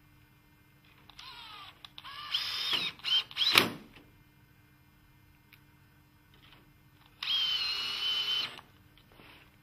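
Cordless drill-driver driving a screw into a window-hardware fitting on the sash. The motor whines in several short bursts that rise in pitch, with a sharp click about three and a half seconds in, then runs steadily for about a second and a half near the end.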